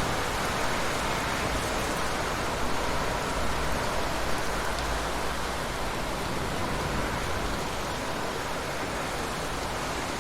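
Rain falling steadily in a forest, an even hiss without breaks.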